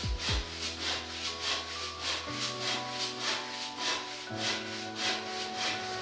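Handsaw cutting through a white oak board: steady back-and-forth rasping strokes, about three a second. Soft background music with held notes plays underneath.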